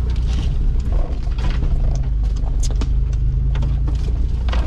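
Off-road 4x4's engine running at steady low revs as it crawls along a rough forest track, with scattered knocks and rattles from the body and suspension over the ruts and branches brushing the vehicle. Heard from inside the cabin.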